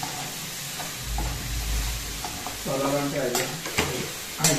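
Onion-tomato masala sizzling in a hot aluminium kadai while a steel spoon stirs it, with a few sharp clinks of the spoon against the pan in the second half.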